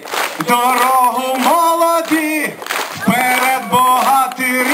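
A man singing into a handheld microphone: short phrases of long held notes, each held about half a second to a second with brief breaks between.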